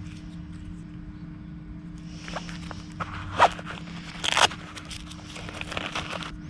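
Rustling and handling noises with a few short clicks, the sharpest about three and a half seconds in and a louder scrape or rustle about four and a half seconds in, over a steady low hum.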